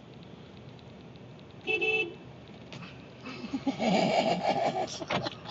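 Car horn giving one short beep about two seconds in, followed a second later by a louder, noisier burst of sound lasting nearly two seconds.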